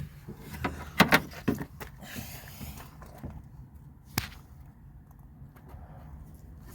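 Knocks and clicks of hand work on the door lock actuator and its cable inside a car door: a few knocks about a second in, a brief rustle, then one sharp click about four seconds in.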